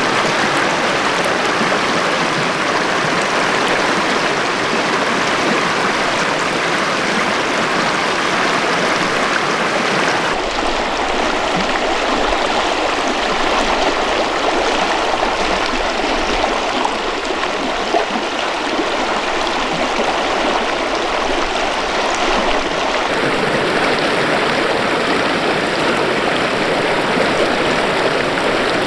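River water rushing steadily over rocks, a continuous dense roar of flowing water. Its tone shifts abruptly twice, about ten seconds in and again a little past twenty seconds.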